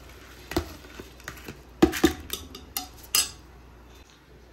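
Steel spoon clinking and scraping against an aluminium cooking pot and a bowl as rice is added to boiling stock: a string of sharp metal knocks, the loudest pair about two seconds in.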